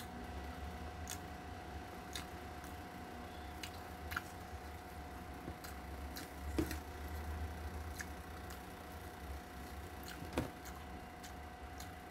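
Quiet eating sounds: scattered, irregular soft clicks and smacks from chewing and from fingers picking food off a stainless-steel tray, two of them louder, about halfway through and near the end, over a steady low hum.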